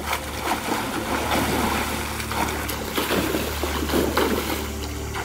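Swimming pool water splashing and sloshing irregularly, over a steady low hum.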